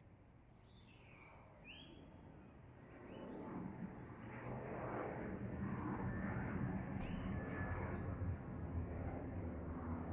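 Several short bird calls, some rising and some falling in pitch, over a steady outdoor rushing noise that swells about three seconds in.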